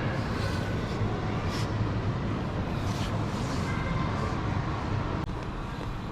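A car driving: a steady low rumble of engine and road noise, with faint steady higher tones and brief hisses over it.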